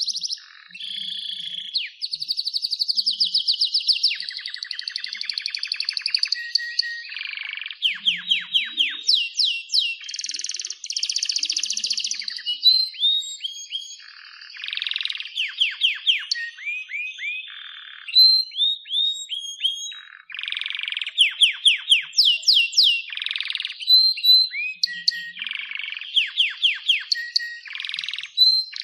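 White-rumped shama singing a fast, varied song: rapid trills, runs of quick sweeping whistled notes and short held whistles, phrase after phrase with only brief gaps.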